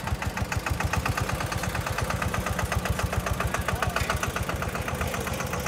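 Small tractor's diesel engine running with an even, rapid beat, loud and steady.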